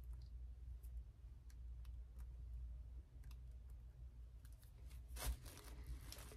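Faint clicks of plastic acrylic paint bottles being handled, over a low steady hum, then a brief louder rustling about five seconds in as a bottle is worked against the gel printing plate.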